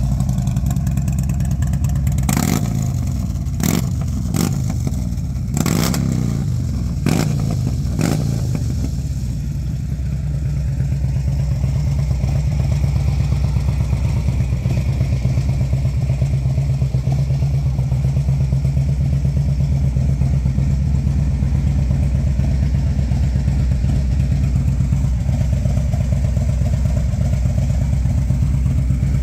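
2013 Harley-Davidson CVO's 110 cubic-inch Screamin' Eagle V-twin running through SVT Boneshaker mufflers, blipped six times in the first eight seconds with sharp pops, then settling to a steady idle.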